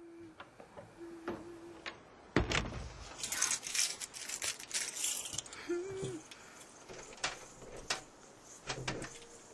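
Light clattering and rustling, with scattered clicks and a busier stretch of handling noise a few seconds in, and a few short hum-like tones.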